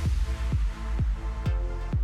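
Electronic dance background music with a steady kick drum, about two beats a second, under sustained synth notes.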